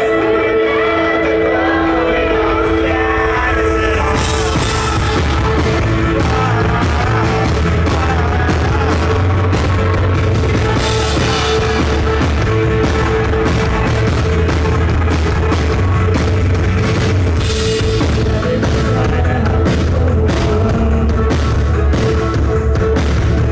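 Live rock band playing a song with a female lead singer: drum kit with cymbal crashes, bass and a held sustained note under the vocal melody.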